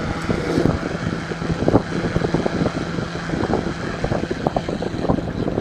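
Corsair ML140 140 mm PC case fan running at 60% speed: a steady rush of moving air over a low hum, pretty loud at this speed.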